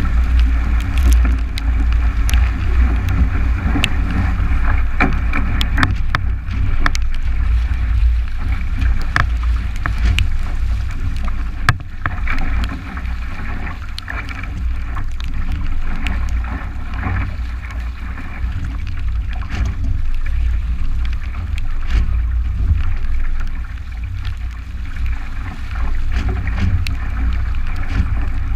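Heavy wind buffeting on an action camera's microphone aboard a 29er skiff, over water rushing past the hull as the boat sails fast in strong wind. Scattered sharp ticks of spray strike the camera.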